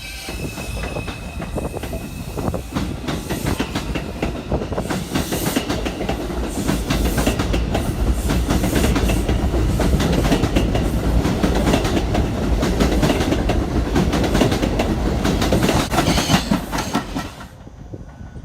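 R142 subway train running along the track, its wheels clicking over rail joints. The noise builds up and then falls away sharply near the end.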